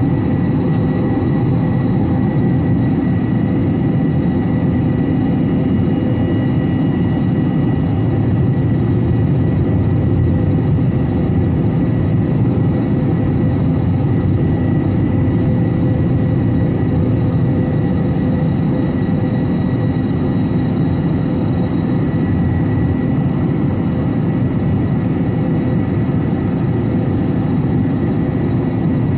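Steady, loud airliner noise from an Airbus A321 in flight with its CFM56 jet engines running: a constant rushing rumble with a few thin steady tones over it.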